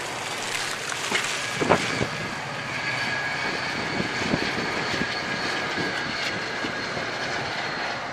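Electric passenger train running across a stone-arch viaduct: a steady rumble with a steady high whine, while road cars pass close by.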